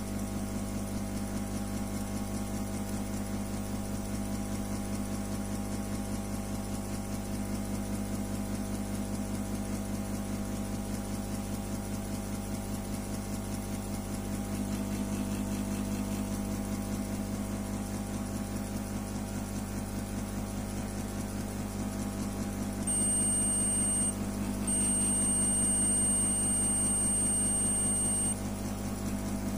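Steady low electrical hum, with a high electronic beep sounding near the end: once briefly, then held for a few seconds.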